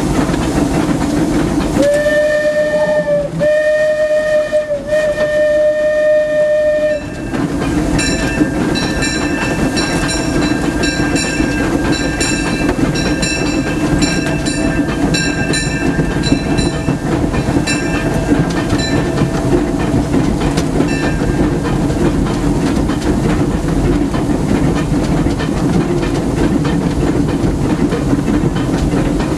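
Steam locomotive C.K. Holliday, a 4-4-0, running, heard from inside its cab, with steady clatter and steam hiss throughout. About two seconds in the steam whistle sounds three blasts, the last the longest. A bell then rings about twice a second for some twelve seconds and fades away.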